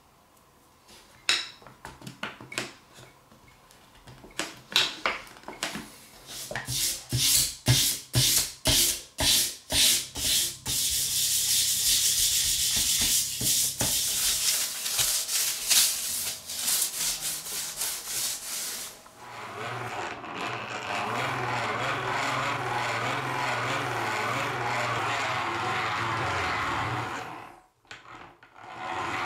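A few scattered clicks and knocks, then a sanding block rubbed back and forth over a steel knife blade in steady strokes, about two a second, that quicken into continuous scraping. Later the blade is held against a spinning hand-cranked grinder wheel, a steady scraping hiss over a low hum that breaks off briefly near the end.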